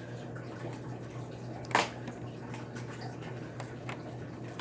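Tiny screws and a small screwdriver being worked into an iBook G4 laptop's case, with faint scattered clicks and one sharper click a little under two seconds in. A steady low hum runs underneath.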